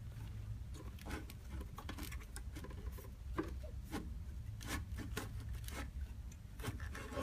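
Irregular light knocks, clicks and rubbing as a 38.4-volt lithium battery set is worked out of its battery box.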